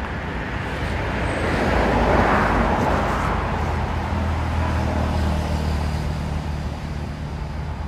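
Motor vehicle traffic going by: engine and road noise swells to a peak about two seconds in and fades away, leaving a steady low engine hum.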